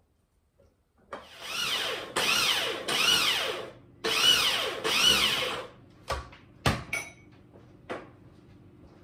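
Small electric grinder run in about five short pulses, its motor whine rising and falling in pitch within each pulse as it grinds granular acorn meal toward flour. A few sharp knocks follow as it is handled.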